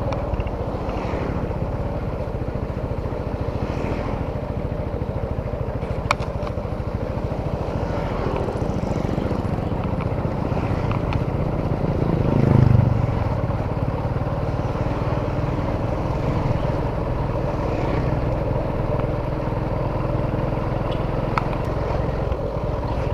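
Small engine running steadily with a continuous rapid pulse, swelling briefly louder about halfway through.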